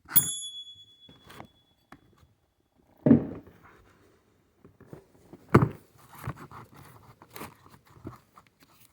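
Small metal parts and tools being handled and set down on a work surface: a sharp ringing metal clink, then several separate knocks and thuds with light rattling and scraping between them.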